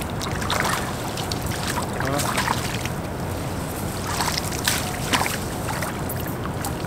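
Handling noise as an angler lands a hooked eel among bankside reeds: scattered rustles and short clicks over a steady low rumble.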